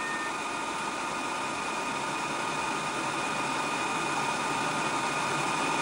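Cooling fans of a 4O3A Power Genius XL 3x1 amplifier running at full speed on the broadcast setting while it transmits at about 500 W: a steady, loud rushing whoosh with faint steady whine tones, holding one speed without ramping.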